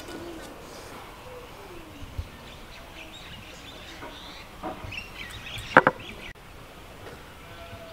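Outdoor ambience with faint bird chirps, and two sharp clicks in quick succession about six seconds in.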